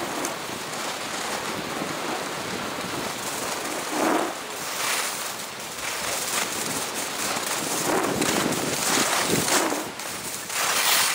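Wind rushing over an action camera's microphone during a fast ski descent, mixed with the hiss and scrape of skis on groomed snow; the rush swells and eases several times.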